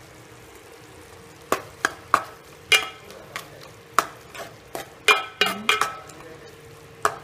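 A steel spoon stirring sautéed onions and tomatoes in a metal pot, with a dozen or so sharp clinks and knocks against the pot starting about a second and a half in, a few of them ringing briefly. A faint sizzle of frying runs underneath.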